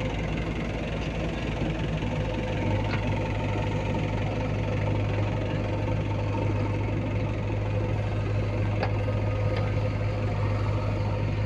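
Diesel engine of heavy machinery running steadily with an even hum, with a few faint clicks over it.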